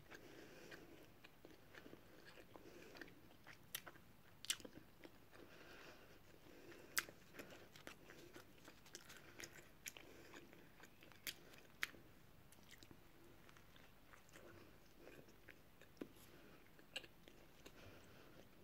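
A person chewing a mouthful of soft-bun burger with the mouth closed. The chewing is faint and wet, broken every second or two by short sharp clicks and smacks of the lips and tongue.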